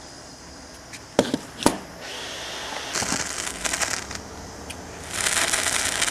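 Handheld gas torch flame hissing on a wire terminal being soldered, with two sharp clicks about a second in. From about five seconds the sound turns into a loud sizzling crackle as the hot joint takes the heat.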